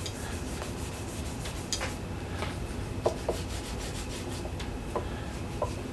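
Cloth rubbing back and forth over the frets of a Gibson SGJ electric guitar, buffing off fret polish. A few light ticks sound along the way.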